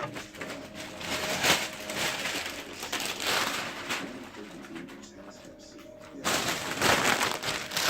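Rustling and handling of plastic packaging in several bursts, the loudest stretch near the end, over a faint steady low hum.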